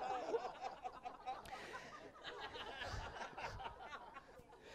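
Audience of guests laughing and chuckling quietly, with scattered voices that die down toward the end.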